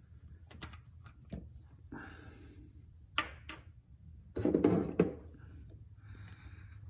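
Scattered light clicks and small metallic scrapes of an oil pressure sender being handled and tried in its threaded port. A short muttered vocal sound comes about halfway through.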